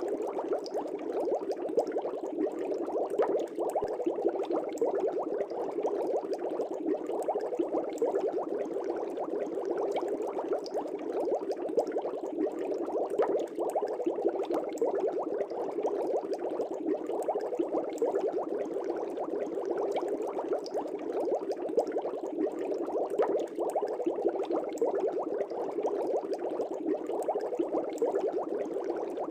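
Aquarium air bubbles rising and breaking at the water surface of a fish tank: a steady, dense bubbling.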